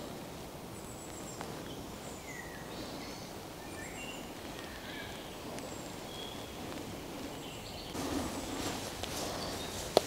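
Woodland ambience of short bird chirps over a low steady background; about eight seconds in, footsteps start rustling through grass and low plants.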